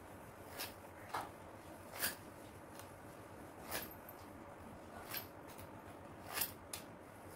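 Faint, irregular light clicks and taps, about seven in all, as a dough cutter is run through a thick rolled sheet of shankarpali dough.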